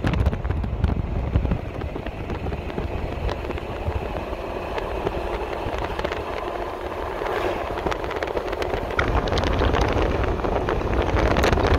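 Steady road and wind noise of a car driving along a paved highway: a low tyre rumble with wind buffeting, easing slightly for a few seconds and then growing louder again near the end.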